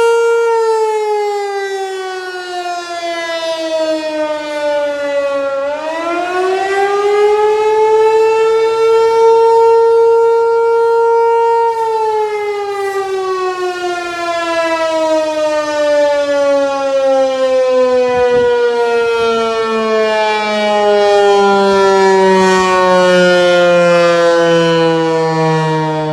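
ASC Tempest 128 outdoor warning siren sounding a loud steady tone. The pitch sags and climbs back about six seconds in, holds, then from about twelve seconds in falls in a long, slow slide as the siren winds down.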